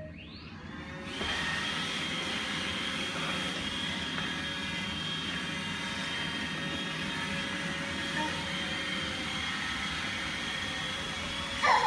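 iRobot Roomba 880 robot vacuum starting a cleaning run: its motor spins up with a rising whine, then about a second in settles into a steady hum with a high whine over it. A short, louder wavering sound comes right at the end.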